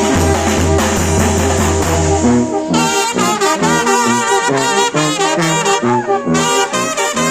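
Oaxacan brass band playing. At first the whole band sounds together over a steady deep bass and cymbals. About two and a half seconds in, the bass and drums drop out, leaving trumpets, trombones and saxophones playing the melody with a wavering vibrato in short phrases.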